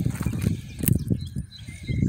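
Footsteps on railroad track ballast: an uneven run of crunching steps on loose stone.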